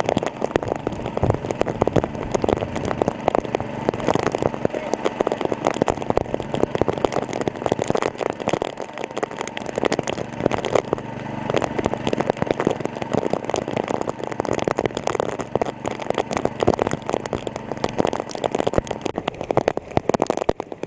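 Small engine driving a water pump, running steadily with a dense crackle.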